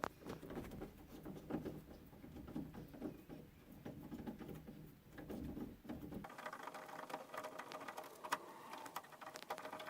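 Long screws being backed out of an old doorknob lock set with a screwdriver: faint clicking and scraping of metal. From about six seconds in, a faint steady whir joins it.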